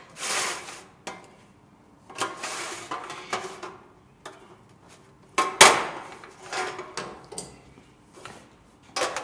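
A thin galvanized sheet-metal tray clattering against the steel bed of a magnetic sheet-metal folder: a series of sharp clanks and scrapes as it is worked with pliers and shifted about. The loudest knock comes about five and a half seconds in.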